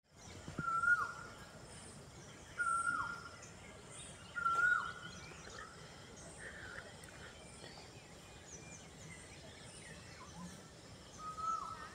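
A bird calling four times, each call a short level whistle that drops sharply at the end, over faint high chirping from other birds.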